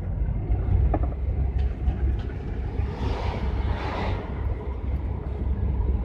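Steady low engine and tyre rumble heard inside the cab of a moving GAZel van. A brief swell of hiss rises and falls about three to four seconds in.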